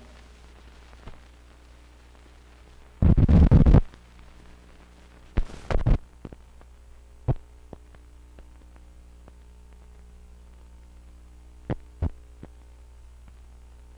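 Steady low hum from an old film print's soundtrack during blank film leader. About three seconds in there is a loud burst lasting under a second, followed by scattered sharp clicks and pops.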